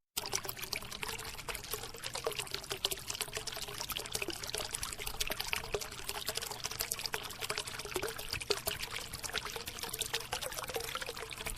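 Fine gravel pouring in a steady stream: a dense, even crackle of many small stones landing.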